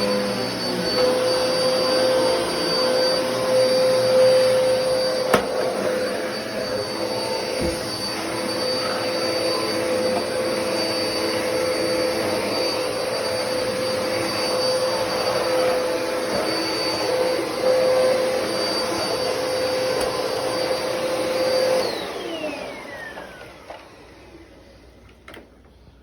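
Black & Decker vacuum cleaner running steadily with a high motor whine, then switched off about 22 seconds in, its whine falling away as the motor spins down.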